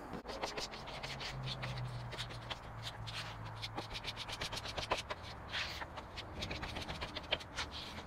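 Yellow plastic spreader mixing lightweight body filler and cream hardener on a paper mixing board: a run of short, irregular scraping strokes as the paste is scraped and folded.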